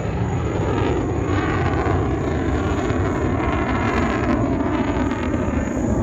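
Eurofighter Typhoon's twin EJ200 turbofan engines making a steady, loud jet roar during a flying display, with a faint sweeping shimmer in the hiss.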